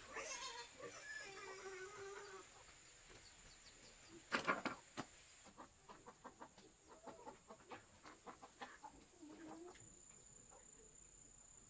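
Domestic fowl clucking in short calls, with a louder burst of calls about four seconds in.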